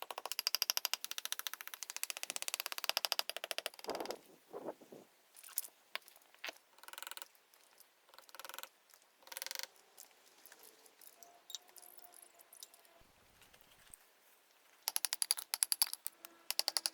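Rapid ratchet-like mechanical clicking in runs of a few seconds, one at the start and another near the end, with scattered knocks and scraping sounds in between.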